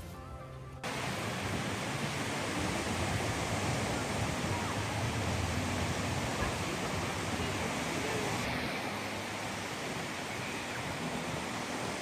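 Steady rushing of surf and wind on an open beach, starting abruptly about a second in.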